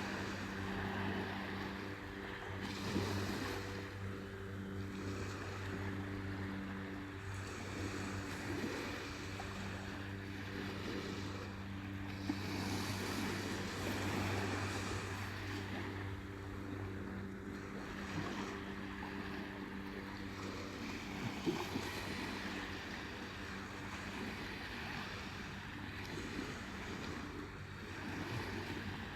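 Sea surf washing steadily onto a beach, with a steady low mechanical hum, like a boat engine offshore, running underneath that fades out about two thirds of the way through.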